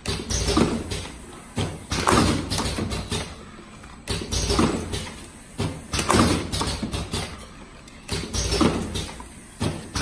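Automatic rotary cartoning machine running, with a mechanical clunk about every two seconds as it cycles and indexes, each clunk led by a lighter knock and followed by a short rattle that dies away.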